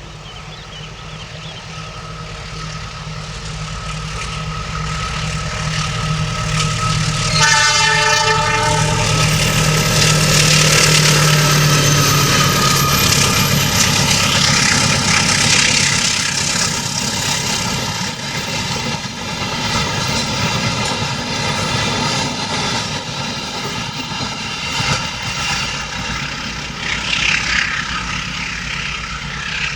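A diesel-hauled train approaching with its engine growing louder. It sounds its horn once for about a second and a half, then passes close by with a loud, steady rumble of wheels and carriages, with a few sharp knocks near the end.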